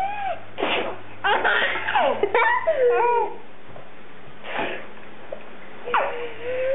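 People laughing in short bursts, with high, sliding vocal sounds and a pause of about a second near the middle.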